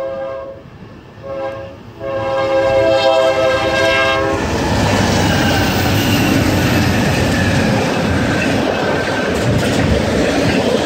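Lead locomotive's multi-note air horn on a BNSF intermodal freight train travelling at about 70 mph: the tail of one blast, a short blast, then a longer blast that ends about four seconds in. The locomotives and double-stack container cars then rush past close by, with steady rolling noise and clickety-clack of wheels on rail joints.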